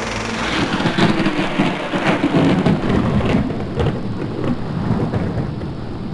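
Dense rushing, crackling noise with a low rumble, like heavy rain with thunder. It is loudest over the first three seconds or so and then eases off.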